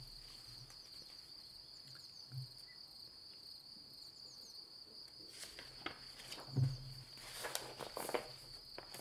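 Steady high insect trill of crickets throughout. From about halfway through, the rustling and handling of a paper picture book as it is opened and its page turned, with a single knock about two thirds of the way in.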